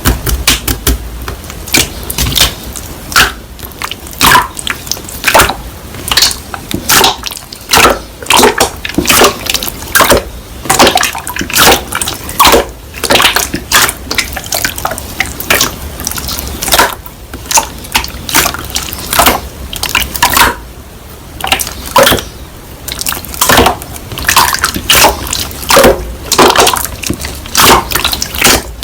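Slime being squeezed and pressed by hand: irregular wet squishes, crackles and small air pops, several a second.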